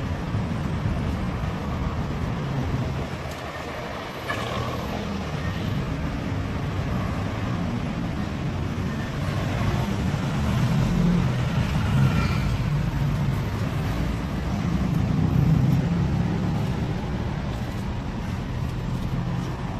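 Street ambience: a steady low rumble of road traffic, with faint voices now and then.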